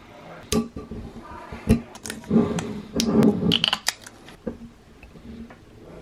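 A wine bottle and a waiter's-friend corkscrew being handled as the corkscrew is opened: a run of sharp clicks, knocks and scrapes, busiest in the middle, then quieter fiddling near the end.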